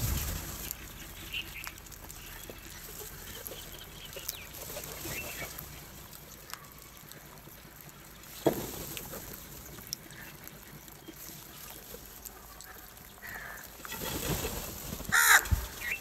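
A flock of house crows cawing now and then while feeding, with wing flaps. A sharp knock comes about halfway through, and a louder flurry of caws and flapping comes near the end.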